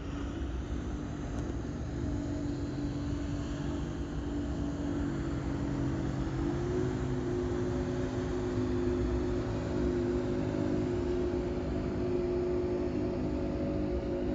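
Low, steady engine drone of a passing cargo freighter over a rumbling hiss, its hum stepping slightly higher in pitch about halfway through.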